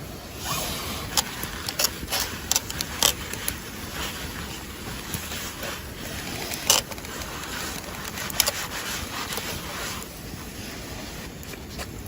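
Wood campfire crackling, with irregular sharp pops over a steady hiss that eases near the end.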